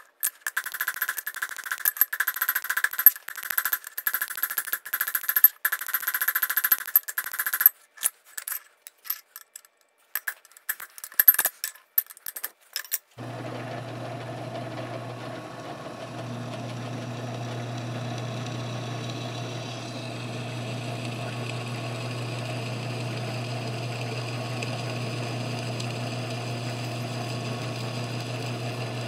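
A hammer striking steel in rapid blows on the anvil, cold-forming the head of a 1/4-inch steel rivet held in a bolster plate; a few scattered blows follow. About thirteen seconds in, a drill press starts running with a steady hum as its twist bit cuts through the flattened end of a steel round-bar handle, throwing off chips.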